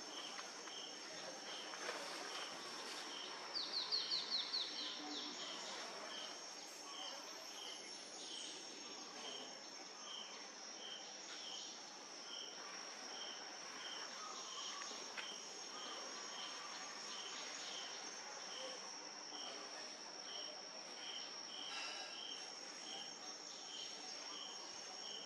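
Insect chorus in forest: a steady high-pitched drone with a chirp repeating regularly a bit under twice a second. About four seconds in, a brief run of about eight quick descending notes is the loudest sound, and a faint falling whistle follows shortly after.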